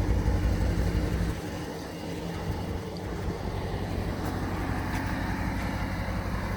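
Muffler-deleted V8 idling with a steady low exhaust rumble, which drops a little about a second and a half in and then holds steady.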